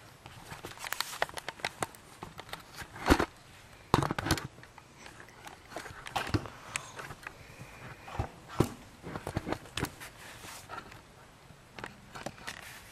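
Handling noise at a cricket keeper while a loose cricket is caught and put back in: irregular clicks, knocks and rustling, with two louder knocks about three and four seconds in.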